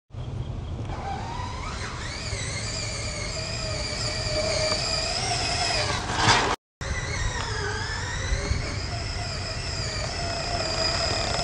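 Radio-controlled car's motor whining, its pitch climbing as it speeds up, over a low rumble. Halfway through there is a louder burst, then the sound cuts out for a moment and returns with the whine dipping and rising again.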